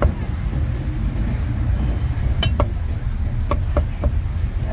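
Heavy cleaver chopping pork on a thick wooden chopping block: a sharp knock at the start, two quick knocks about two and a half seconds in, and two more about a second later. A steady low rumble of street traffic runs underneath.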